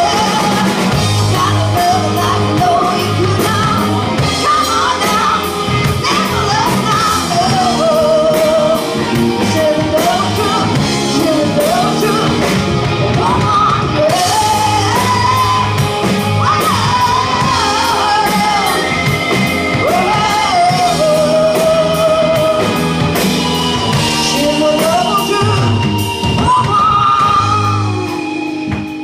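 Live band playing: a woman singing lead over electric guitar, bass guitar and drums.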